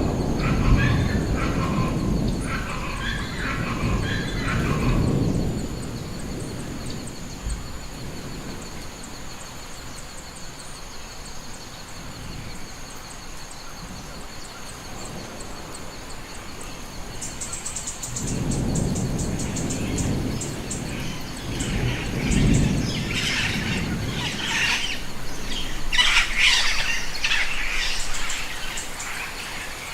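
Rainforest ambience: birds chirping and calling in bursts near the start and again late on, over two faint steady high-pitched drones, with low rolling rumbles of distant light thunder at the start and again about 18 seconds in.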